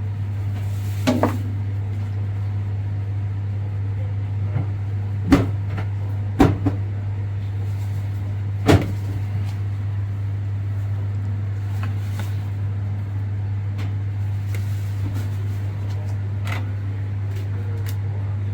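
Microwave oven running with a steady low hum, broken by a few sharp knocks and clicks.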